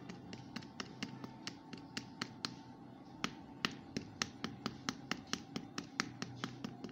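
Metal screwdriver tip tapping and scraping at the positive terminal of a small motorcycle battery: a quick run of sharp clicks, about four a second, louder in the second half. He is working at a terminal he suspects has lost its internal connection.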